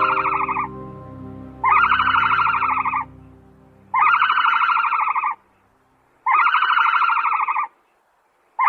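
An animal calling over and over: long calls of about a second and a half each, every one a rapid trill, repeating about every two and a half seconds. Soft music fades out beneath the first few calls.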